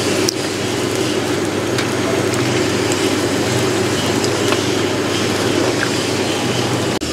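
Potato chunks deep-frying in hot oil in a large iron kadhai: a steady, dense sizzle with scattered small pops, while a perforated steel skimmer turns them.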